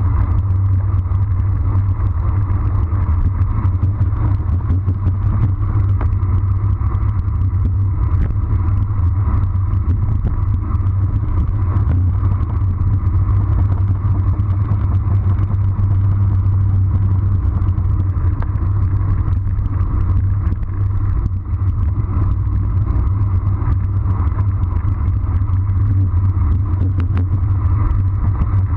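Steady wind rush and low road rumble on a handlebar-mounted camera of a road bike descending at speed, with tyres running on asphalt.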